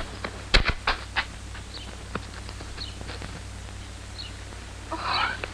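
A quick run of sharp knocks about half a second to a second in, then a few faint short high sounds, with a brief voice-like sound near the end. A steady low hum runs underneath.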